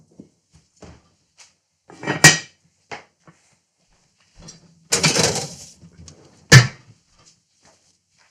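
A heavy lidded enamelled cast-iron Dutch oven being handled and loaded into the oven. There is a clattering knock about two seconds in, a rushing scrape around five seconds, and a sharp bang a moment later.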